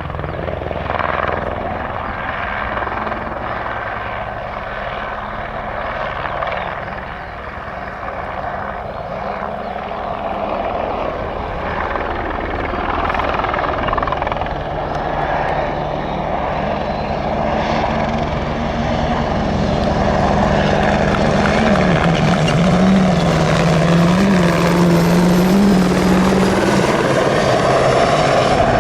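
Turbine helicopter flying over, its rotor and engine running steadily and growing louder through the second half, with a wavering hum rising and falling near the end.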